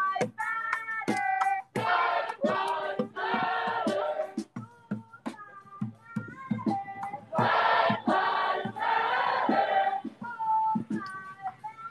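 Many voices of a marching crowd singing and chanting together in phrases, with sharp percussive hits in between.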